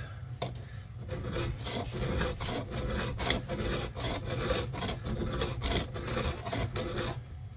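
Chainsaw chain cutters being sharpened by hand with a file, in quick, even rasping strokes, about two or three a second. The teeth are being filed back after the chain hit a rock.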